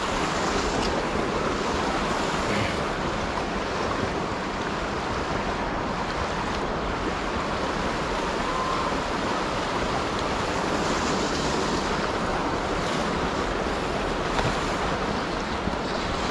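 Fast river water rushing over rocks in a steady, unbroken stream of noise.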